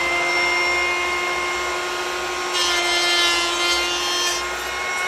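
Ryobi 18-volt cordless hand planer running at a steady whine. From about two and a half seconds in to past four seconds, a brighter rasping sound joins it as the blades shave the wood.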